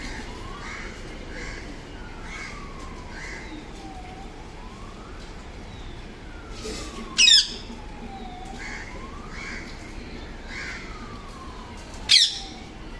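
Green parrots giving two loud, harsh squawks, about seven and twelve seconds in. Beneath them are short repeated chirps and a slow, rising-and-falling wail.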